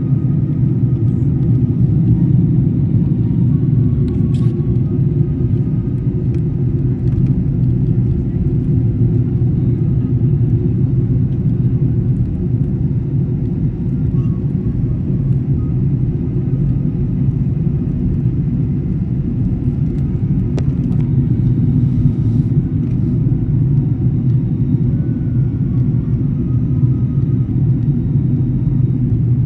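Steady low rumble of a Singapore Airlines Airbus A380 in flight, engine and airflow noise heard from inside the cabin on the way in to land.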